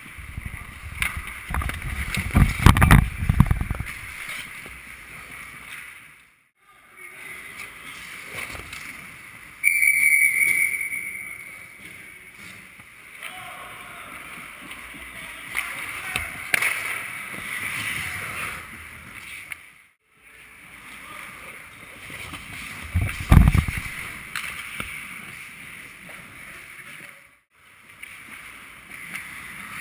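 Ice hockey rink sound picked up by an action camera inside the goal: skates scraping on the ice, players calling out, and low thumps near the net. About ten seconds in a referee's whistle blows loudly for a second or so. The sound drops out briefly three times where clips are joined.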